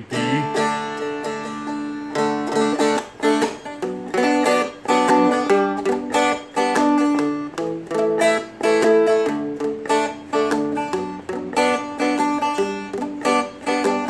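Seagull Merlin M4 strumstick strummed steadily through the four-chord progression D, B minor, G and A, changing chords every second or two.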